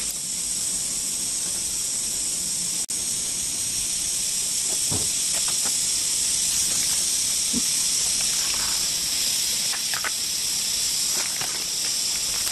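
Steady hiss of steam escaping from a flameless heating-pack cooker as the water-activated heating element reacts and boils the water under the lid. The hiss cuts out for a moment about three seconds in.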